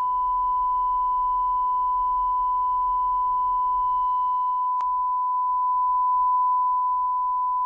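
A steady 1 kHz sine test tone played through a Subaru Sambar kei truck's door speaker. A click about five seconds in marks the switch from the stock, undeadened door to the door fitted with sound deadening, and the faint extra tones alongside the main tone drop away there.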